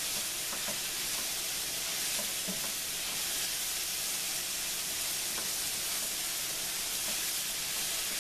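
Sliced bell peppers and onions sizzling steadily in hot olive oil in a skillet while tongs toss them, with a few faint clicks from the tongs.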